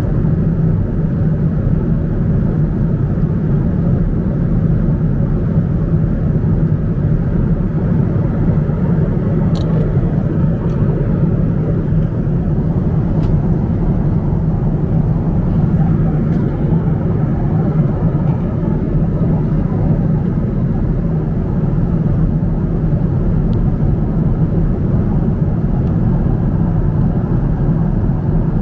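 Steady cabin drone of an airliner at cruise altitude: engine and airflow noise heard from inside the cabin. A few faint ticks come partway through.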